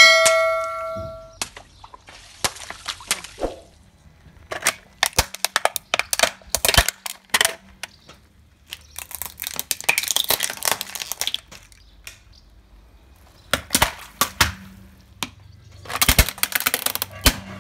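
Plastic toys and balloons being crushed under a car tyre: a loud burst with a brief ringing tone at the start, then a string of sharp cracks, snaps and crunches of breaking plastic, thickest about ten seconds in and again near the end.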